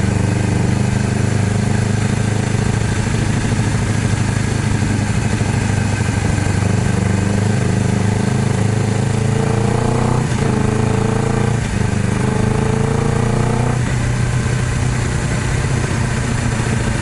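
Honda CBR250RR motorcycle engine running steadily while riding, then accelerating through the gears from about nine seconds in: three rising pulls, each cut short by a quick upshift, before settling back to a steady cruise.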